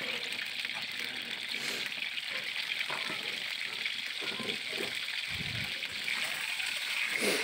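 Hard-boiled eggs frying in hot oil in a kadai: a steady sizzling hiss.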